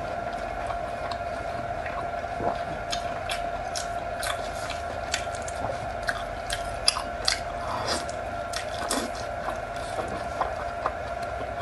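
Close-miked biting and chewing of soft, fatty braised pork: irregular wet mouth clicks and smacks, over a steady hum.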